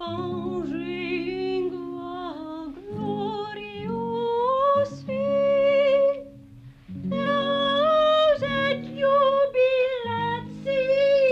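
A woman singing a slow melody with vibrato to a lute accompaniment. The tune climbs, then breaks off briefly about six and a half seconds in before going on.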